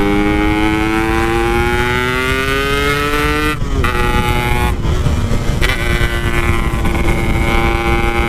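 Yamaha RX-King two-stroke single-cylinder motorcycle engine under way. It pulls steadily up in pitch for about three and a half seconds, then drops through a few quick gear changes and settles into a steady cruising note. Wind rushes on the microphone throughout.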